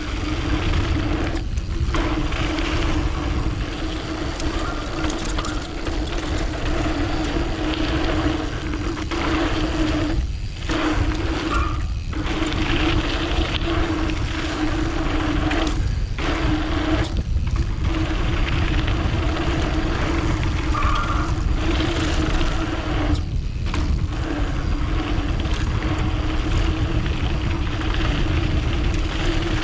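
Mountain bike's rear freehub buzzing steadily as the bike coasts downhill, over a low rumble of tyres and wind on the helmet camera. The buzz and rumble drop out briefly about half a dozen times.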